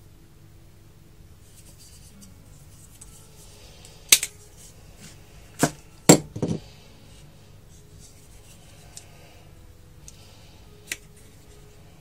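Black Benchmade Griptilian folding knife being worked open and shut by hand: a few sharp clicks of its AXIS lock and blade, closest together and loudest around the middle, with one more near the end, over light rustling of hands on the handle.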